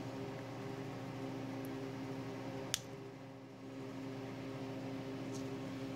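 Steady background hum, with a single sharp click a little before the middle as pliers snip the dried glue holding an electrolytic capacitor on the speedometer circuit board, and a couple of fainter ticks.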